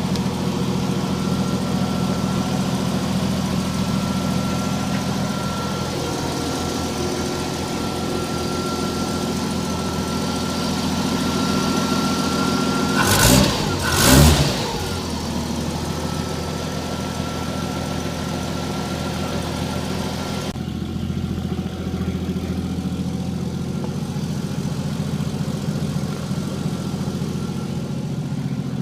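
1953 Chevrolet 210's 235 cubic-inch straight-six idling steadily, blipped twice in quick succession a little under halfway through, then settling back to idle.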